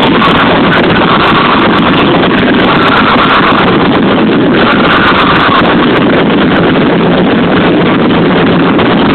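A live band and crowd at a loud concert, recorded on a phone microphone so overloaded that the music is smeared into a constant distorted noise with no clear notes.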